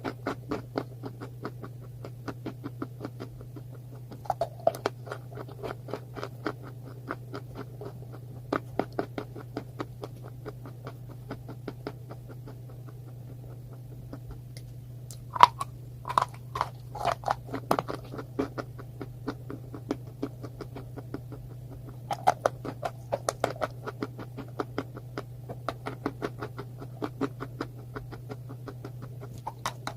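Close-miked chewing of a crunchy food: bursts of rapid crackles and crunches with short pauses between bites, over a steady low hum.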